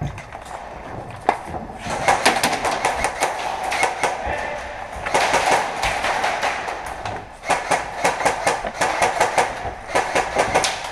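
Rapid full-auto airsoft gunfire: fast clattering clicks in three long strings, starting about two seconds in.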